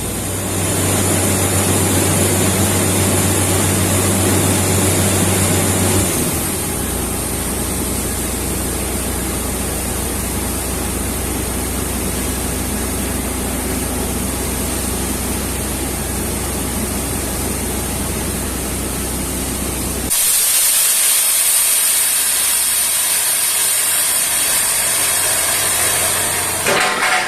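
Borewell drilling rig running steadily, a loud low machine drone. About six seconds in the note drops lower. About twenty seconds in the drone stops and a loud hiss takes over.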